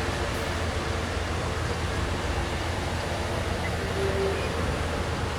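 Passenger train moving along the tracks, a steady low rumble.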